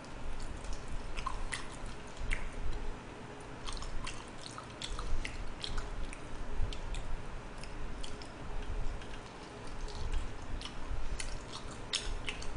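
Chewing and biting on braised pig's trotters (jokbal), with scattered wet clicks as meat is torn from the bone and chewed.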